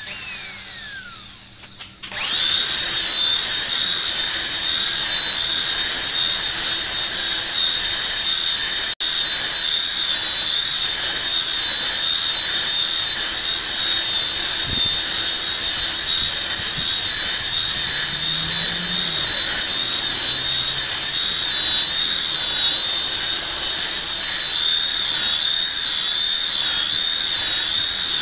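Handheld electric power tool spinning a foam polishing pad, buffing compound into a car's sanded clear coat. The motor comes up to speed about two seconds in and then runs steadily with a high whine, with a brief break about nine seconds in.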